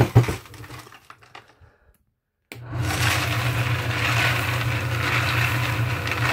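A few handling knocks, the first the loudest, then, about two and a half seconds in, a Frankford Arsenal Rotary Tumbler Lite comes in running steadily. Its motor hums, and a hiss of brass cartridge cases and wet media tumbles in the turning drum.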